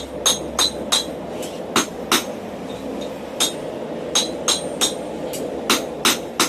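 Blacksmith's hammer striking hot steel on an anvil while forging a flat bracket. About a dozen sharp, ringing blows come in uneven runs, with a longer pause near the middle.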